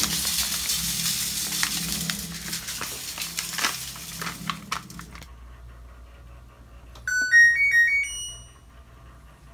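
Powdered tub cleaner poured into a stainless steel washer drum, a steady hiss with small ticks that stops abruptly about five seconds in. About seven seconds in, the LG WT7800 washer's power-on chime plays a short run of electronic notes rising in pitch.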